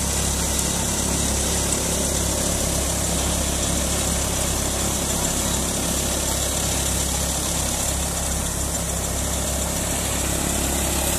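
Tractor-driven threshing machine running steadily while mustard stalks are fed into it by hand: an even mechanical drone from the tractor's engine and the thresher's drum.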